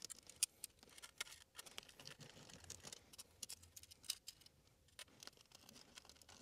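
Faint small clicks and scrapes from a screwdriver working the terminal screws of a plastic smoke-detector base as wires are fastened under them, scattered irregularly with no steady rhythm.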